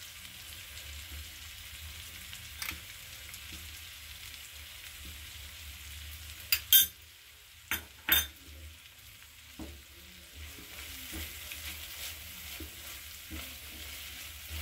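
Prawn and ridge gourd curry sizzling steadily in a nonstick frying pan, cooked down until its oil has risen to the top. Four sharp knocks come about halfway through and are the loudest sounds, and a spatula stirs the curry near the end.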